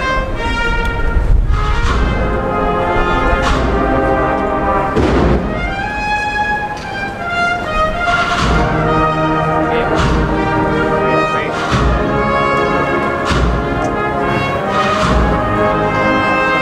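Processional band of brass and drums playing a slow Holy Week march: sustained brass chords over regular drum strokes.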